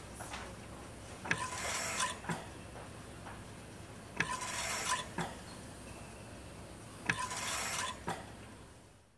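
Mechanical ventilator cycling about every three seconds: each breath is a click, a short hiss of air with a faint tone in it, and a second click. Three breaths in all, then it fades out near the end.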